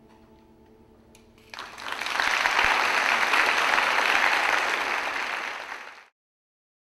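Audience applause breaking out about a second and a half in, building quickly and staying loud, then cut off abruptly shortly before the end. Before it, the last faint held notes of the dance music linger.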